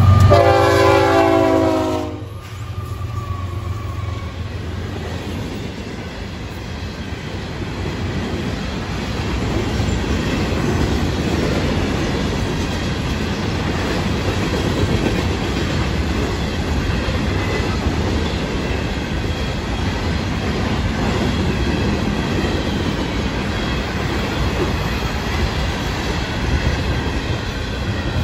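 Florida East Coast freight train passing close by. The lead locomotive's horn sounds and cuts off about two seconds in, and the diesel engines' low drone fades over the next few seconds. Then a long string of hopper cars rolls past with a steady rumble and clatter of wheels on the rails.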